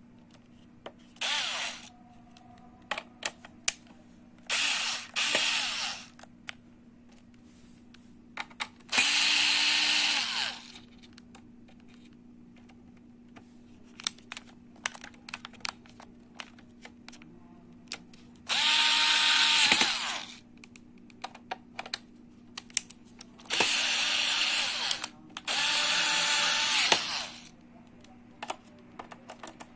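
Tonfon 15 Nm cordless electric screwdriver turning the small case screws of a metal electronics box in about six short runs of one to two seconds each. Light clicks come between the runs.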